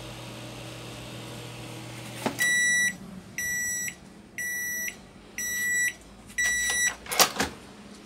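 George Home GDM301B-16 microwave oven humming as it runs, then its cycle ends about two seconds in with a click and the hum stops; five beeps, about one a second, signal that cooking is done. Near the end a sharp knock as the oven door is opened. The running and heating show the no-power fault repaired.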